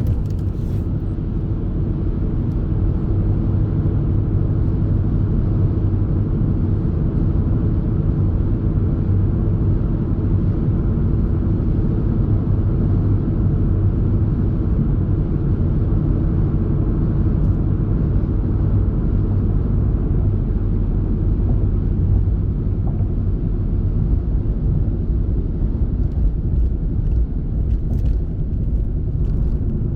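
Car on the move: a steady, even low rumble of engine and road noise.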